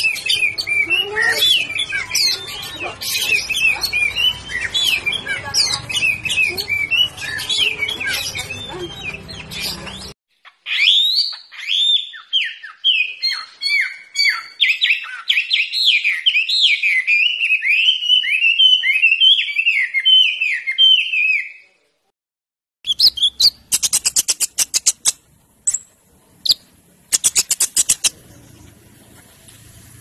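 Caged songbirds singing in turn. First a pied 'murai blorok' white-rumped shama gives a rich, varied song of whistles and chirps. After a short break at about ten seconds, a hwamei sings a long run of repeated downslurred whistles. After a second of silence, another small bird gives a series of sharp, rapid clicks and short trills.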